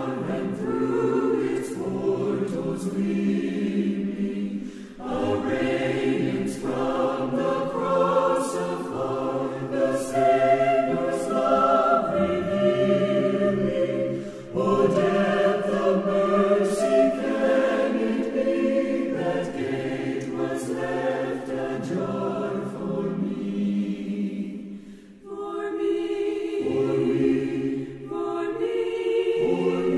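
Choir singing in harmony, in sung phrases broken by brief pauses.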